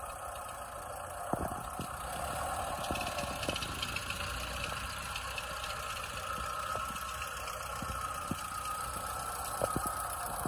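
A 1948 Ford 8N tractor's four-cylinder flathead gasoline engine running steadily at low throttle while the tractor is driven slowly, with a few sharp clicks.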